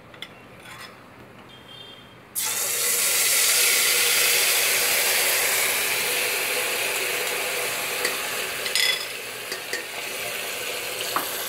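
Yogurt and turmeric paste going into hot mustard oil in a pressure cooker. After a few light clicks at first, a loud sizzle starts suddenly about two and a half seconds in and carries on steadily, with a few clicks now and then.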